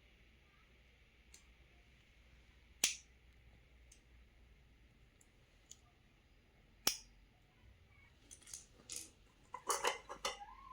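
Toy packaging being handled by hand during an unboxing: a single sharp click, another a few seconds later, then a quick run of clicks and crinkles near the end.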